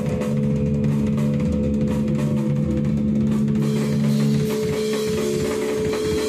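Death metal band playing live: a drum kit hammering fast bass drum and snare under steady low, heavy notes. About four and a half seconds in, the drums and low notes stop, leaving one sustained note ringing on.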